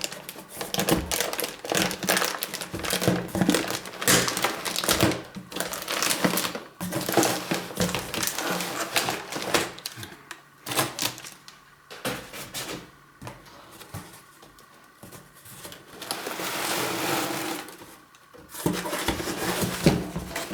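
Unpacking noises as packaging and parts are handled: dense clicks, taps and knocks through the first half, then sparser, with a rustle lasting about two seconds a few seconds before the end.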